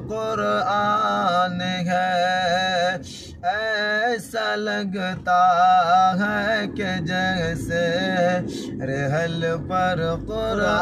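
A man singing a naat solo and unaccompanied: long, ornamented sung phrases with a wavering, gliding pitch and short breaks for breath. A faint steady high tone runs underneath.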